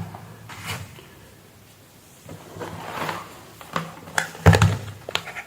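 Scattered clicks and knocks of small objects being handled, the loudest a knock about four and a half seconds in, with a brief scraping rustle about three seconds in.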